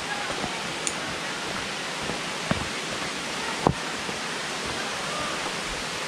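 Steady rush of falling water from Raymondskill Falls and its creek. Two sharp footfalls on the dirt trail sound about two and a half and three and a half seconds in.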